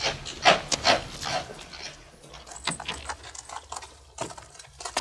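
A horse's hooves clopping on the road as a horse-drawn carriage draws up, with sharp irregular knocks in the first two seconds; then scattered clicks, creaks and small knocks from the carriage's woodwork and fittings.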